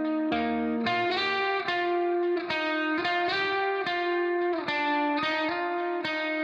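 Background music: a melody of plucked guitar notes, about two notes a second.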